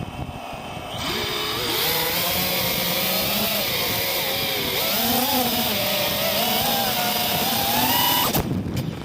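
FPV quadcopter's brushless motors whining under changing throttle, their pitch wavering up and down and climbing near the end, then cutting off suddenly: the drone failsafing and its motors stopping.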